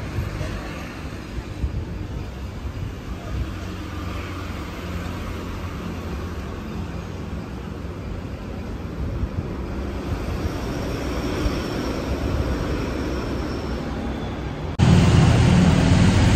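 A steady low rumble of background noise with a faint hum, and a few light clicks of a metal spoon against the plate and bowl about two and three seconds in. About fifteen seconds in it cuts abruptly to a louder, steadier low hum.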